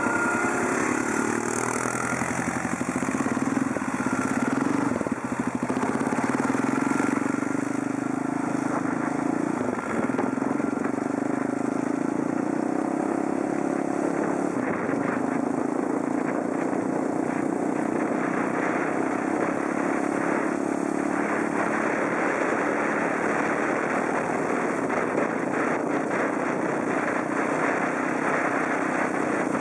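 Snowmobile engine running steadily as it travels along a snow trail, its pitch rising a little over the first several seconds and then holding steady.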